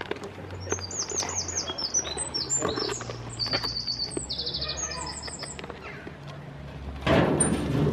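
A small bird chirping and trilling: a string of short high chirps and one fast trill, with faint scattered clicks below them. Near the end a loud rustling noise comes in.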